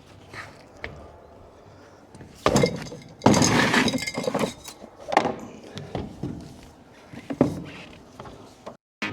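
A series of clattering bangs and knocks of hard objects being handled and dropped. The loudest is a sudden crash about two and a half seconds in, followed by a longer clatter and then a few sharper knocks.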